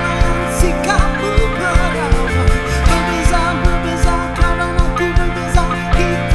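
Rock band playing live: a steady, regular drum beat under bass and sustained, bending melodic lines.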